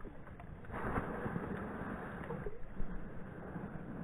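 Water splashing and sloshing in an ice-fishing hole as a brook trout is released back down it, a rough rushing noise that swells about a second in.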